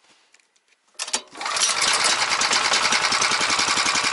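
The Bars Sledopyt motorized snow tow's small four-stroke petrol engine is pull-started with its recoil cord and catches on the first pull about a second in, then runs steadily with an even, fast firing beat.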